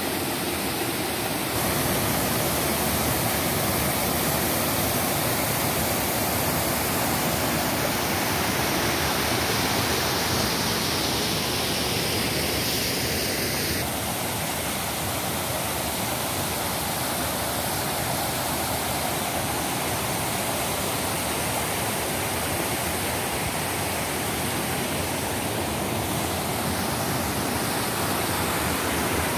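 Water pouring over a low stone ledge in a cascade, a steady rushing noise. The tone and level shift slightly about a second and a half in and again about fourteen seconds in.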